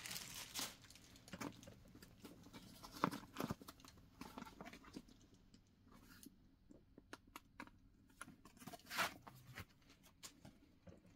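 Faint rustling and crinkling of paper stuffing inside a handbag as it is handled, with scattered soft clicks and two louder crinkles about three and nine seconds in.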